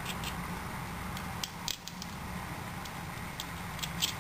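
Light, scattered clicks of small metal screws being picked off a table and handled against a plastic dynamo-torch casing, over a steady low hum.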